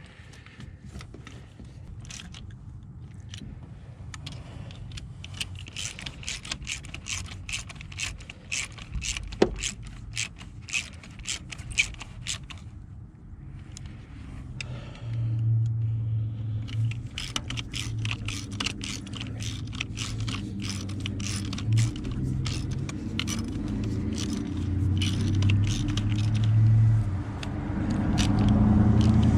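Irregular metallic clicking, scraping and jangling of hand tools and parts being worked in a Jeep's engine bay. A low vehicle rumble comes and goes in the second half and grows toward the end.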